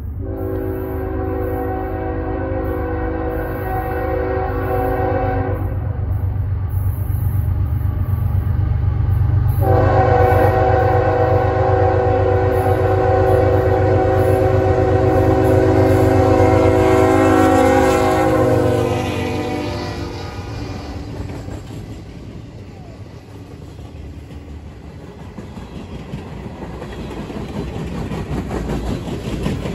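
CSX freight train's diesel locomotives sounding a multi-chime air horn in two long blasts, the second sliding down in pitch at its end, over the low rumble of the engines. After the horn stops, the loaded flatcars roll by, with wheel-on-rail noise growing louder.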